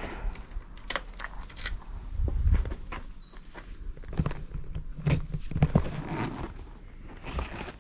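Steady high-pitched insect chirring, with irregular knocks and rustles close to the microphone.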